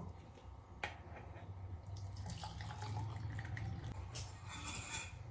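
Hot tea being poured from a pan into a cup: a faint trickle of liquid over a low steady hum, with a single light clink about a second in.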